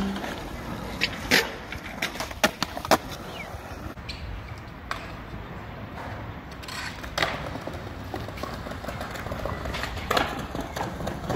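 Skateboard wheels rolling on concrete and stone paving, with scattered sharp clacks of tails popping and boards slapping down during flip-trick attempts.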